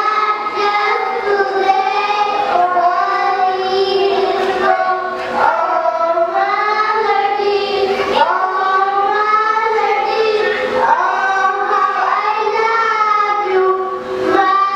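Young children singing into a handheld microphone: long held notes that slide up and down in pitch, phrase after phrase, with short breaks between lines.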